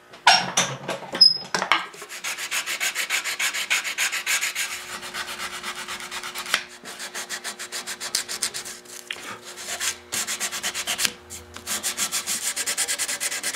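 Sandpaper rubbed back and forth by hand over a new wood end on a furniture stretcher, in quick, even strokes with a couple of short pauses.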